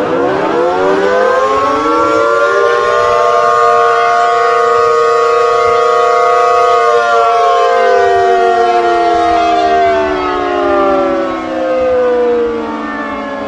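Civil defense warning siren sounding several tones at once. It winds up in pitch over about three seconds, holds a steady chord for about four seconds, then winds slowly down.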